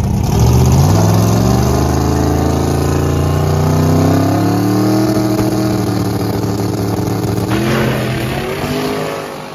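1955 Chevy drag car's twin-turbo big-block engine launching hard and accelerating down the strip, its pitch climbing steadily for several seconds. The pitch eases about seven seconds in, and the sound fades as the car pulls away.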